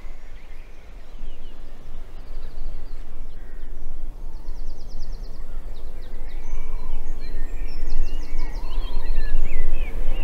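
Outdoor ambience: songbirds chirping, with several quick high trills, over a steady low rumble.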